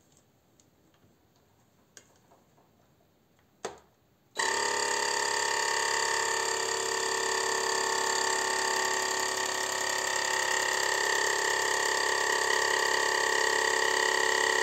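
A few faint clicks, then a sharp click, and about four seconds in a countertop vacuum sealer's pump starts and runs steadily with a constant whine, drawing the air out of a vacuum canister that holds a screw-top jar.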